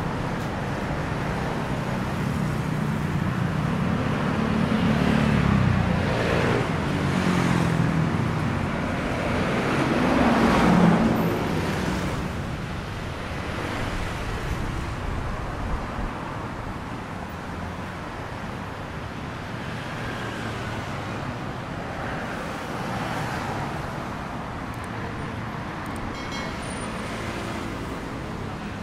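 City road traffic: a steady stream of cars and engines with a low engine drone about four to eight seconds in, and a vehicle passing close that swells to the loudest point about eleven seconds in, then fades back into steadier traffic.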